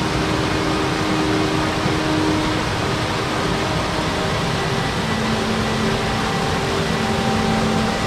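Steady rush of a small waterfall cascading over rocks, with faint held tones underneath that change pitch about five seconds in.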